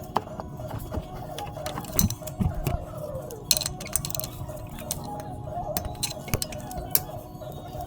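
Irregular light metallic clicks and clinks of hand tools and small parts being handled, over a steady low hum.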